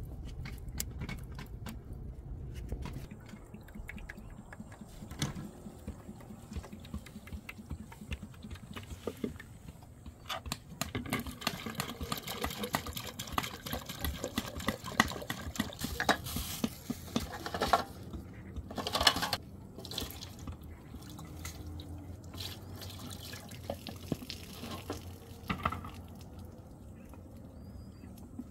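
Water splashing and dripping, mixed with irregular small knocks and clatter that are busiest through the middle of the stretch.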